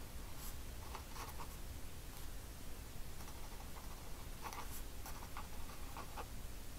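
A pen scratching on paper in short, irregular strokes as lines are drawn along a ruler, over a faint steady room hiss.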